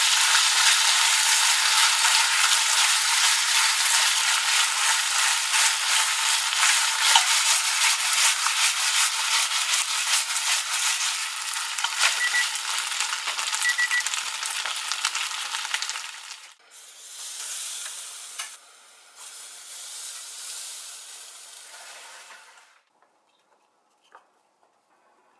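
Food sizzling and crackling in a hot frying pan, loud for about sixteen seconds, then weaker in two short stretches before stopping about twenty-three seconds in.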